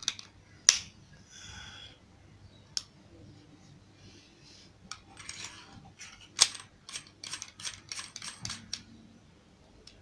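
Handling noise from a Panasonic EM-2800A shotgun microphone turned over in the hands: scattered sharp clicks and taps, the loudest a little under a second in and about six and a half seconds in, then a quick run of small clicks a little after seven seconds.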